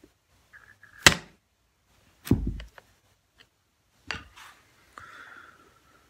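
Hammer tapping the handle of a screwdriver three times, sharp knocks with a brief ring, the first the loudest, driving the axle out of a vacuum brush roll's seized end cap.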